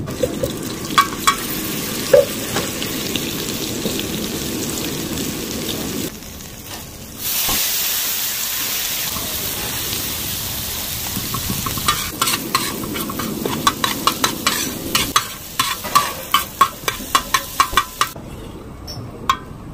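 Oil and chopped vegetables sizzling on a hot flat iron griddle while a metal spatula stirs them. The sizzle is steady and loud, dipping briefly about six seconds in. In the second half, many sharp clicks come from the spatula scraping and tapping on the griddle.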